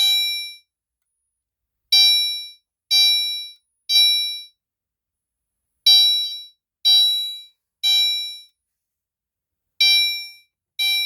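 Gentex Commander 3 fire alarm set to chime, ringing in a temporal-3 evacuation pattern: three bright chime strikes about a second apart, each dying away within about half a second, then a pause, repeating. It stops after two strikes of the last group near the end.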